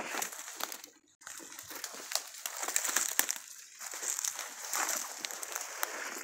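Footsteps crunching and rustling through dry leaf litter and twigs, in uneven swells with a short lull about a second in.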